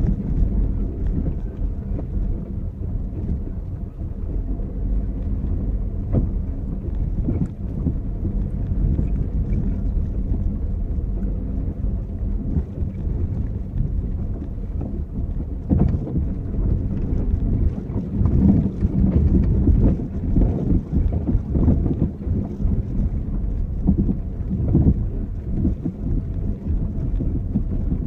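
Low rumble of a car driving slowly over a rough dirt road, heard from inside the cabin, with louder knocks and jolts in the second half.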